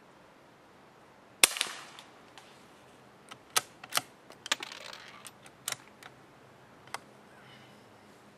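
A single soft shot from a long-barrelled CZ 452 Ultra Lux .22 LR bolt-action rifle firing CCI Quiet subsonic ammunition: a short crack about a second and a half in with a brief trailing echo. It is followed by a run of metallic clicks and clacks as the bolt is worked to eject the case and force the next tight-chambering round home.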